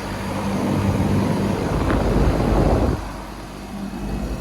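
Outdoor air-conditioning or heat-pump condenser running with a steady low hum, under a rushing noise that eases about three seconds in.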